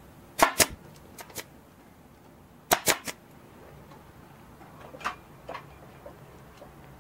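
Hand staple gun driving Arrow half-inch staples to fasten cardboard: two loud, sharp snaps about two seconds apart, each a quick double click. Fainter clicks come between them and again about five seconds in.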